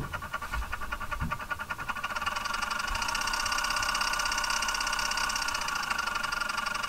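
Electric Eel Wheel Nano 2 electric spinning wheel's motor spinning the flyer and bobbin in the S-twist direction. Its whine builds over the first two to three seconds as the speed is turned up, then runs steadily with a fast, even flutter.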